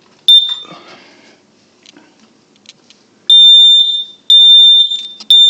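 Combination smoke and carbon monoxide alarm set off with its test button. It gives one short high chirp, then about three seconds later starts loud, high-pitched beeps, three of them about a second apart: the alarm's fire warning pattern.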